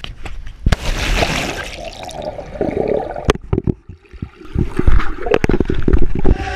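Water sloshing and bubbling around a GoPro camera as it goes under water in a swimming pool, with scattered sharp knocks.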